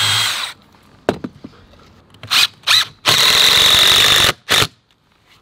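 DeWalt cordless drill running briefly into composite decking trim, then a DeWalt impact driver driving a screw in several short bursts and one longer run of a bit over a second, with a steady high whine, pulling the mitered trim piece down flush.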